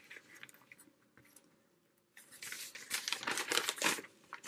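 Newspaper flyer rustling and crinkling as it is picked up and turned over, starting about two seconds in after a nearly quiet start.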